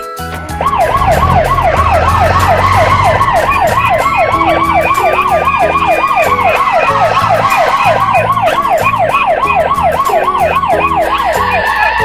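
Police siren sound effect: a fast yelping siren whose pitch sweeps up and down about four times a second. It starts about half a second in and cuts off at the end, over background music.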